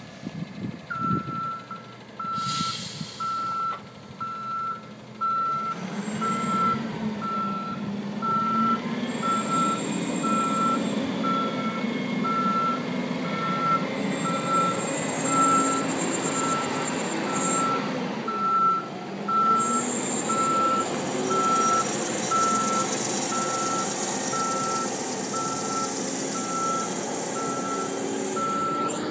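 Terminal yard tractor backing up: its reverse alarm beeps steadily, about one beep a second, starting about a second in, over the truck's engine running.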